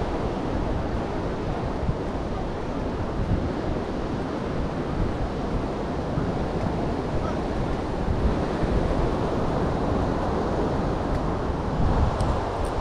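Steady rush of ocean surf breaking against the shore, with wind buffeting the microphone.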